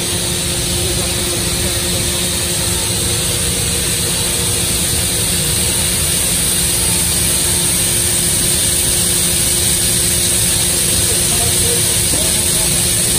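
Steady mechanical hum and hiss of a large horizontal five-axis CNC profiler while its pallet changer slowly draws the pallet table out along the rails. Two steady hum tones sit under the noise, which grows slightly louder toward the end.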